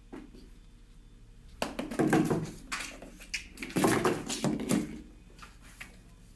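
A flurry of clattering and rustling, as of a small object being knocked about or handled, in two bursts: one about a second and a half in and one about four seconds in.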